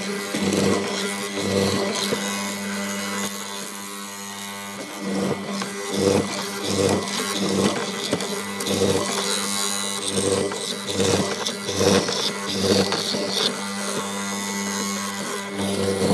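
Hollow-chisel mortiser running with a steady motor hum as its square chisel and auger are plunged repeatedly into a wooden board. Each plunge brings a short burst of cutting noise, some a second or more apart and some several a second.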